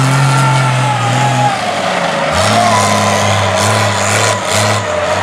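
Mud truck's engine running hard at high, steady revs. About two seconds in, it gives way to a lower engine note that pulses on and off unevenly as the truck climbs the dirt bank.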